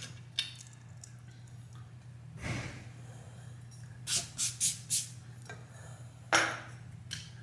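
Light metal taps and clicks as a freestanding tub filler's brushed-nickel base cover is handled and fitted over its floor mount: four quick clicks about four seconds in, and a louder short rustle near the end, over a steady low hum.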